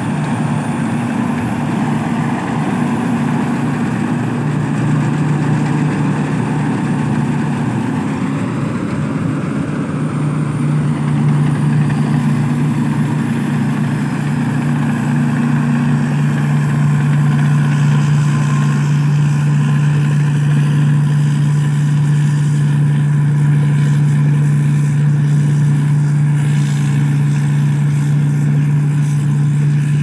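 Rice combine harvester's diesel engine running steadily under load as it harvests, a constant deep hum with its threshing machinery turning.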